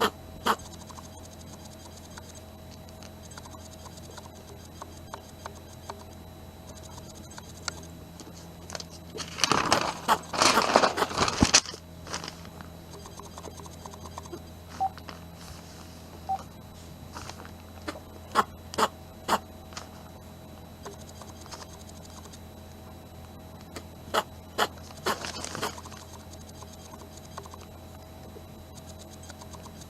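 A sneezing fit: a dense run of short, sharp sneezes about ten seconds in, then single sneezes spaced out later, over a steady low hum.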